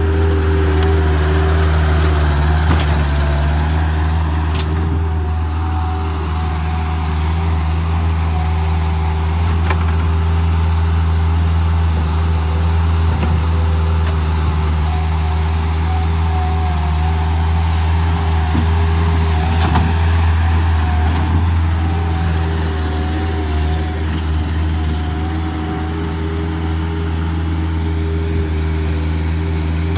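Bobcat 753 skid steer's diesel engine running steadily at an even speed.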